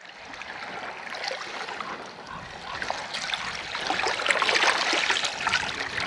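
Water trickling and splashing, growing louder toward the end.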